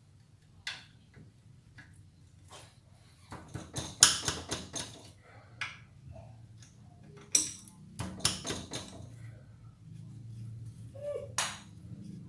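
Metal hand tool clicking and clinking on a 12 mm bolt under a motorcycle's frame as the bolt is loosened. The clicks come in quick runs about three to five seconds in and again around eight seconds, with one sharper click near the end.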